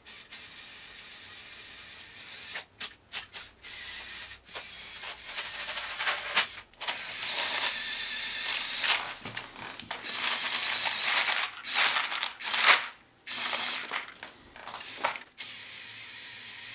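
LEGO Technic 8043 excavator's electric Power Functions motors whirring in stretches of a second or two as its bucket digs into a tub of loose plastic LEGO pieces. Clicks and rattles come in between as the pieces scrape against the bucket and the tub.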